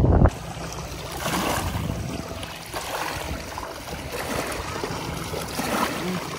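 Small waves lapping and splashing at the lake's edge, swelling and falling every second or two. A loud low rumble cuts off suddenly at the very start.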